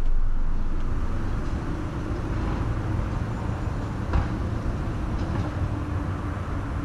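Steady low outdoor rumble at a car charging stall, with a faint hum in the second half and one brief knock about four seconds in.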